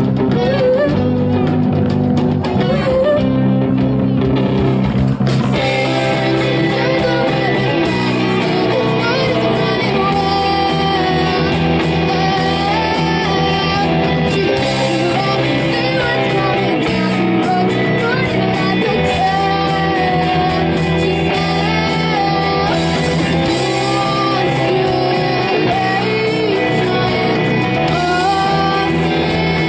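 A live rock band playing electric guitar, bass guitar and drums, with a singer. About five seconds in the sound gets fuller and brighter as more of the band comes in.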